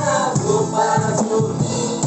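A group singing an upbeat gospel song together over music with a steady beat.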